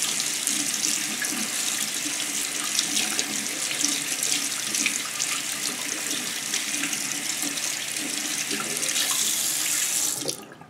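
Bathroom faucet running into a sink as hands are rubbed and rinsed under the stream. The tap is shut off near the end and the water stops suddenly.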